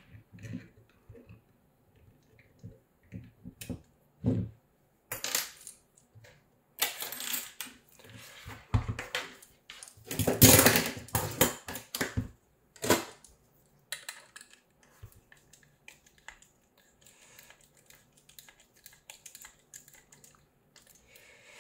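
Small 3D-printed plastic parts and metal hardware handled on a workbench: scattered clicks, taps and clinks, with a louder stretch of rattling and clatter about ten to twelve seconds in. Fainter small clicks near the end as a small screwdriver works a screw into the plastic motor block.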